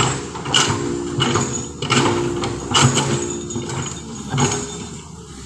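Background music with a steady beat: pitched notes over regular drum strokes.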